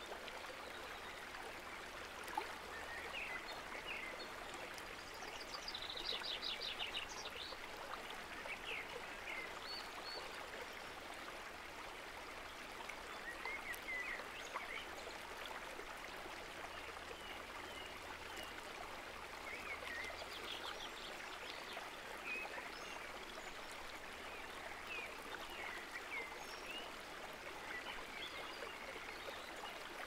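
Shallow mountain creek rushing steadily over stones, with short high chirps and trills now and then.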